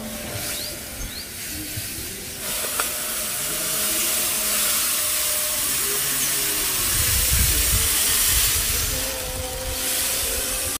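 Granulated sugar pouring from a plastic bag into a metal pot of flour: a steady hiss of falling grains that grows louder about two and a half seconds in.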